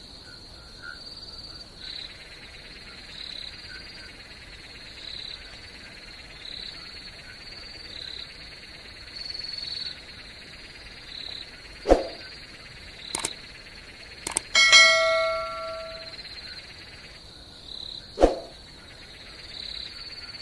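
Crickets chirping steadily in a constant high pulsing trill. A few sharp knocks land a little past halfway and again near the end, and one short ringing ding, the loudest sound, dies away over about a second.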